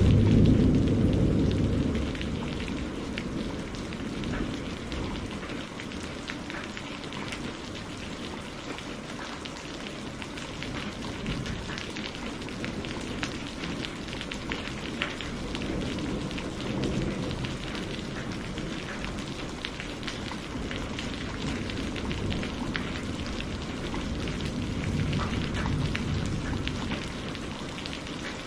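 Steady rain falling, with many small drop hits on a surface. A low rumble of thunder fades away in the first two seconds.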